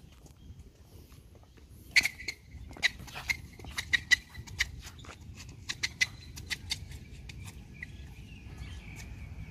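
Tennis shoes squeaking and scuffing on a hard court during footwork drills: a string of short, sharp squeaks at an uneven pace of about two a second, starting about two seconds in.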